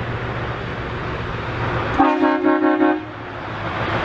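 A Scania truck's horn sounds one blast about a second long, about halfway through, several tones together. Under it a steady low engine hum runs.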